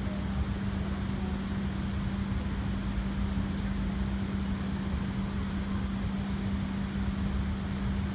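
Steady mechanical hum with one constant low tone over a low rumble.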